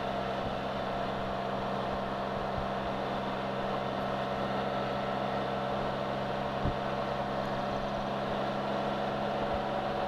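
Can-Am Spyder three-wheeled motorcycle cruising steadily at about 30 mph: a constant engine and drivetrain hum over road and wind noise, with one brief knock about two-thirds of the way through.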